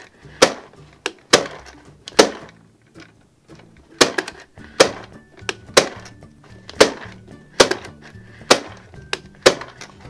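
Handle-cranked toy popcorn maker: its popping mechanism snaps about once a second, tossing modelling-clay popcorn pieces around its clear plastic box, with one longer pause. Background music plays underneath.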